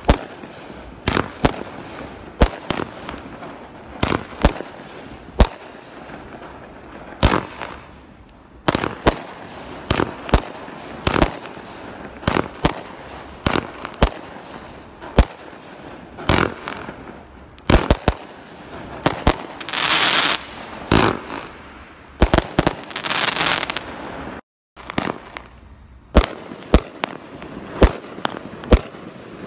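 Multi-shot consumer firework cakes ('Honor', then 'Country') firing: a string of sharp reports from shots launching and bursting, often about one a second and sometimes closer together. Two stretches of dense hissing crackle, each about a second long, come a little past the middle. The sound cuts out for a moment about four-fifths of the way through, where the firing switches from one cake to the next.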